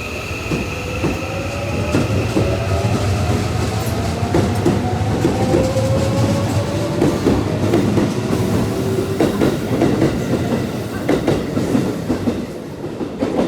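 Electric train moving through the station: its motors whine in several tones that rise slowly in pitch as it gathers speed, with the wheels knocking and clacking over rail joints.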